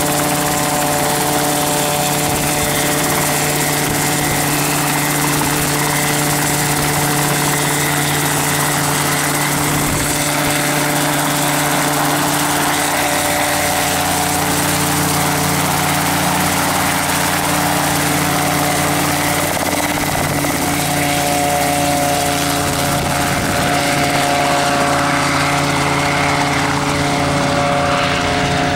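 RotorWay kit helicopter's piston engine and rotor running at flight power as it lifts off and climbs away: a loud, steady drone with a whine. Its pitch shifts a little just past the middle, and it swells slightly near the end.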